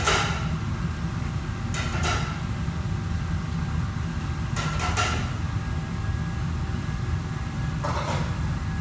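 Kitchen background noise: a steady low hum with short clatters, four of them spaced two to three seconds apart.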